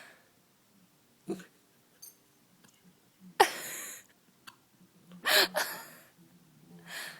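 A Samoyed puppy hiccupping: about four sharp hics spaced roughly two seconds apart, some followed by a short breathy rush of air. The one a little past the middle is the loudest.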